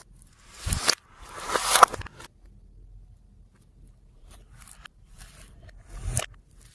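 Makeup and slime being handled in a slime-making session: a run of short scraping, crackling noises, loudest between about half a second and two seconds in, then quieter, with another few near the end.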